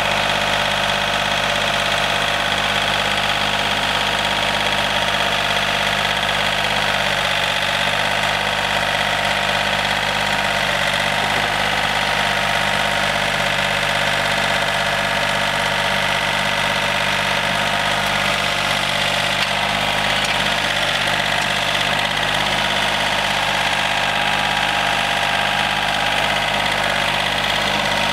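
John Deere 4300 compact tractor's three-cylinder diesel engine running steadily at a constant speed.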